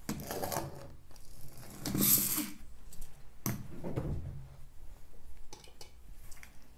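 Small plastic toy scooter's geared drive whirring as it is pushed along the table and let go to roll off on its own. There are a few short bursts, the loudest about two seconds in.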